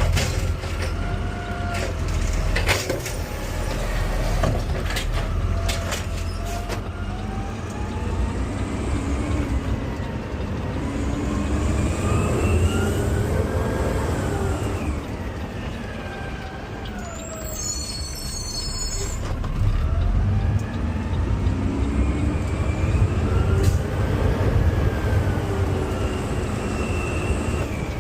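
Garbage truck's diesel engine running under hydraulic load as its automated side-loader arm grips, lifts and dumps a cart. The engine pitch rises and falls twice, and several sharp knocks come a few seconds in.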